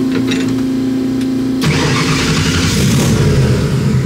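Starter motor cranking the turbocharged Volvo wagon's engine with a steady whine; the engine catches about a second and a half in and keeps running loudly.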